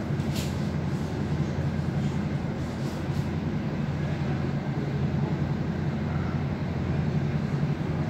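NS VIRMm double-deck electric train running steadily at speed, heard from inside the carriage as a continuous low rumble. A few short, faint ticks come in the first three seconds.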